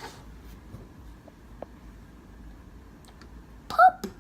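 A few faint, scattered light clicks and taps from small objects being handled on a table. Near the end a child says a short, loud "pop".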